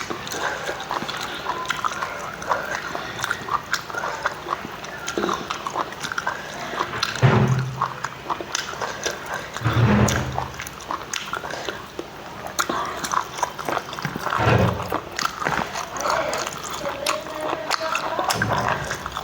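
Close-up eating sounds of someone chewing a rice meal: wet chewing, lip-smacking and many small mouth clicks, with four short low-pitched sounds spread through it.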